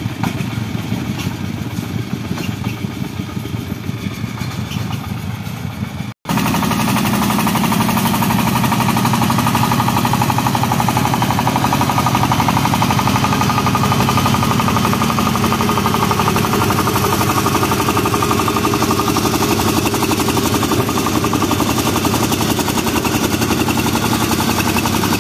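Công nông farm truck's single-cylinder diesel engine running under load, with a rapid steady knock. The sound cuts out for an instant about six seconds in and comes back louder.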